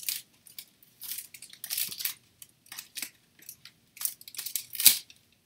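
Bottle opener's retail packaging being handled and pulled open by hand: short, irregular crinkling and rustling, with one sharp snap near the end.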